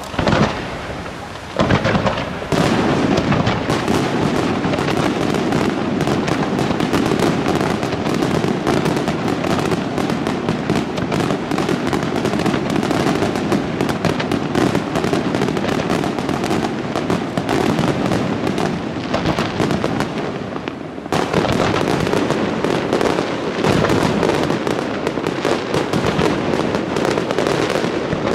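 Aerial fireworks display: two separate shell bursts, then a dense, continuous barrage of rapid bangs. The barrage eases briefly about two-thirds of the way through, then builds again.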